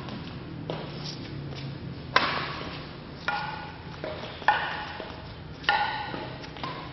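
Badminton rackets hitting a shuttlecock back and forth in a rally: sharp pings, about one a second, the three hardest smashes a couple of seconds in, midway and near the end, each ringing on in the echo of a large hall.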